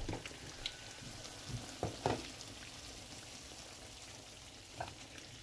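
Hot oil sizzling quietly in a frying pan of fried flour dumplings, with a few light clicks and crackles, the strongest about two seconds in.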